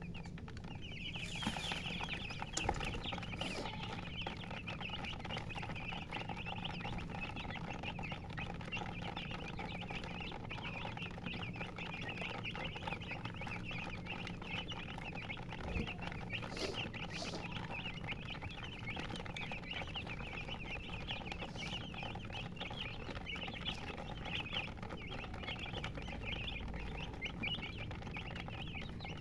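A flock of chicks chirping continuously: many high, overlapping peeps that start about a second in.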